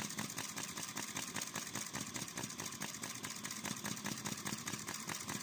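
Small twin-cylinder V2 flame-licker (vacuum) engine running, a rapid, even train of clicks from its cylinders drawing in the flames.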